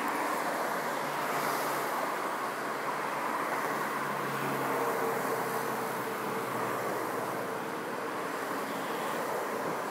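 Steady road traffic noise from vehicles crossing the bridge, with one engine standing out about four to five seconds in.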